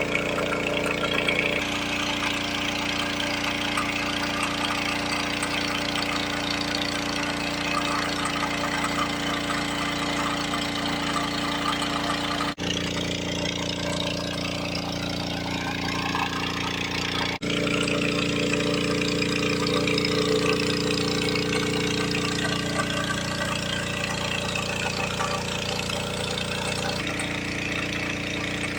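Small petrol engine of a portable alkon water pump running steadily for gold dredging, with two sudden brief dropouts where the engine note shifts.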